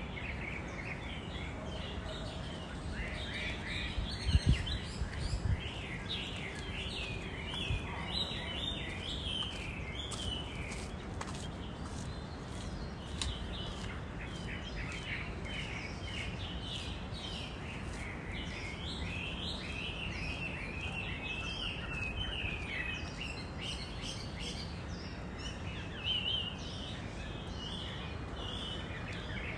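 Birds chirping continuously in many short, falling chirps over a steady low background rumble, with a few low thumps about four to five seconds in.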